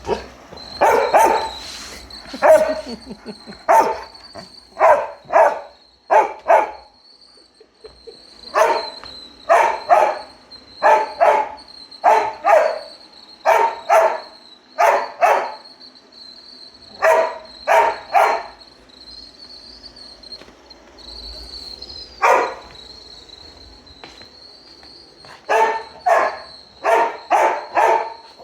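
Dog barking repeatedly at a robot vacuum cleaner, in quick runs of two to four barks, with a pause of a few seconds about two-thirds of the way through. A steady high-pitched whine runs underneath.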